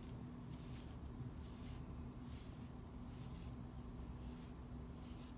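A T-handled grooming brush drawn again and again through a Chow Chow's dense double coat, each stroke a soft scratchy swish, in a steady rhythm of roughly one a second. It is combing out loose, shedding undercoat.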